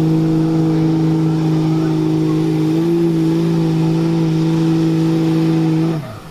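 Second-generation Dodge Ram pickup's Cummins diesel engine held at full throttle while pulling a weight-transfer sled: a loud, steady engine note that rises slightly about halfway through and drops off suddenly near the end.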